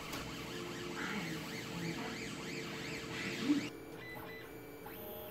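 3D printer printing: its stepper motors whine in quick rising and falling glides over a steady hum. About two-thirds of the way in this switches to a quieter, steadier hum from a Creality CR-10 S5 printing with noise dampeners fitted on its stepper motors.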